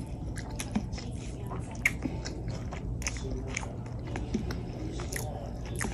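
Close-miked mouth sounds of someone eating chicken wings: chewing with irregular wet clicks and lip smacks.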